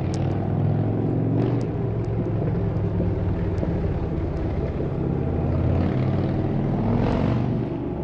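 Steady low rumble of outdoor noise, swelling and brightening about five seconds in, with a few faint clicks scattered through it.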